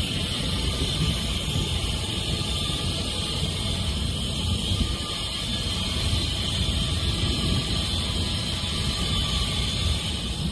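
Wind buffeting a phone's microphone: a gusty low rumble with a steady hiss over it.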